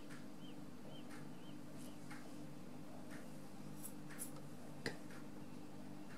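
Faint, regular ticking about once a second over a steady low hum, with one sharp click just before the five-second mark.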